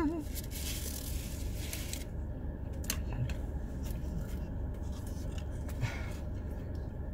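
Steady low hum of a car's air conditioning running, with scraping and rustling from a spoon and food packaging during the first two seconds, a sharp click about three seconds in and another brief scrape near the end.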